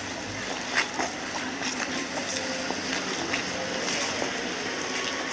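Outdoor crowd ambience: a steady background murmur of many people's voices, with scattered small clicks and knocks.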